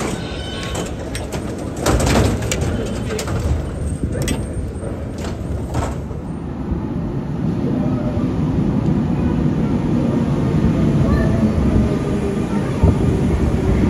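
Metro station sounds: a few sharp clacks in the first six seconds, then the low rumble of a metro train moving along the platform, growing louder toward the end.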